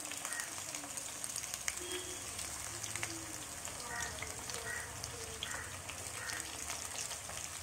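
Peanut and banana-flower vadai deep-frying in hot oil in a steel pan: a steady sizzle dotted with small crackling pops.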